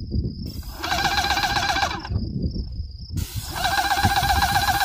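Hose-fed paint sprayer spraying in two bursts of a pulsing buzz, the first about a second in and the second starting past the middle. A steady high whine sounds in the gap between the bursts.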